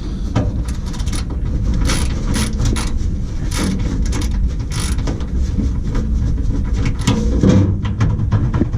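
Clicks and clattering of tools and metal parts being handled, over a steady low rumble.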